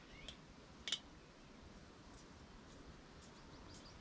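Camping gas stove being fitted to its gas cartridge: a small click, then a sharp metallic click about a second in. Faint high bird chirps follow in the second half.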